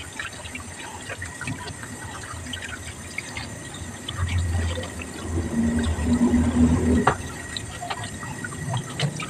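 Tap water running into a metal basin in a stainless steel sink, with splashing and small clicks as a whole tilapia is rubbed and washed by hand. A low hum swells for a few seconds in the middle.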